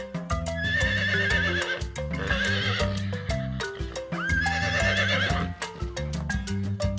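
A horse whinnying twice, over light background music played on marimba-like mallet percussion.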